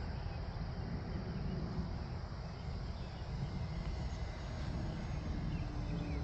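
Outdoor wind rumble on the microphone, steady and low, with a few faint high chirps from birds in the second half.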